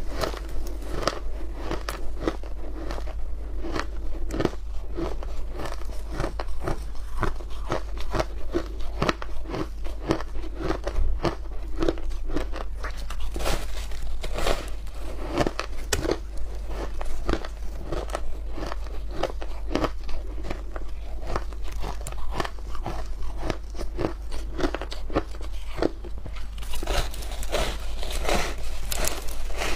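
Crunching bites and chewing of a block of frozen shaved ice coated in milk powder, close to a clip-on microphone: many crisp cracks in quick, irregular succession.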